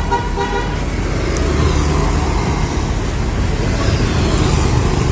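Road traffic: a car driving past on the street, over a steady low rumble of traffic.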